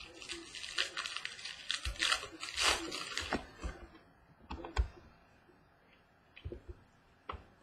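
Crinkling and tearing of a card box's plastic wrapping, with clicks of cardboard and cards being handled. The rustling is dense for the first three seconds or so, then thins to a few scattered clicks.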